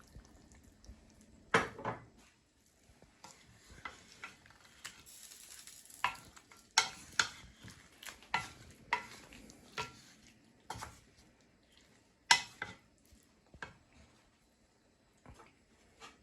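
A spoon stirring a pot of simmering chicken curry, knocking and scraping against the pan in a string of sharp clinks, most of them between about six and ten seconds in, with a faint sizzle underneath.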